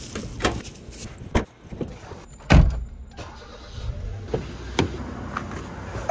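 Handling sounds of a Hyundai Elantra: sharp door and latch clicks and knocks, with one heavy, deep thump about two and a half seconds in, just after the push-button start is pressed.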